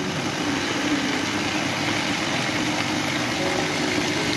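Electric blender motor running steadily with a held hum, puréeing boiled mango pieces in its jug.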